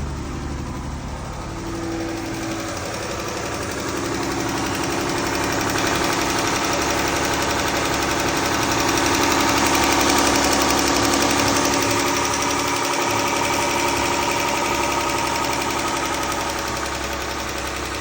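Jeep's 3.6 Pentastar V6 engine running just after start-up, with the ticking that the mechanic puts down to worn lifters and rocker arms. It gets louder through the first half.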